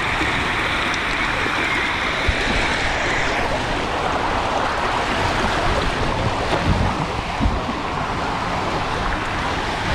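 Steady rush of water flowing down into the start of a waterslide, with a couple of low knocks about seven seconds in.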